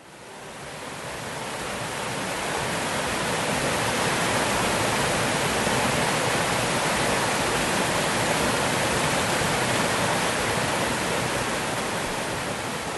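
Waterfall: a steady rush of falling water that fades in over the first couple of seconds and begins to fade out near the end.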